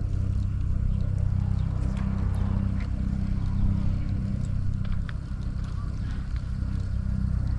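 Steady low engine hum, with a few faint scattered clicks.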